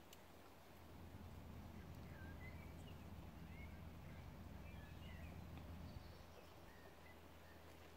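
Faint, distant small-bird chirps and short twittering calls over a low rumble that swells from about a second in and eases off near six seconds.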